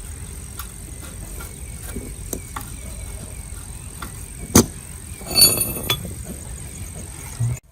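Metal tools and parts being handled on an old diesel engine: scattered light clicks, one sharp metal knock about four and a half seconds in, then a ringing metallic clatter just after five seconds, over a steady low rumble.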